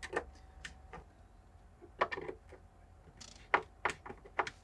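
A few light clicks and taps, irregularly spaced, with a small cluster about two seconds in and several sharper ones near the end, like small objects being handled.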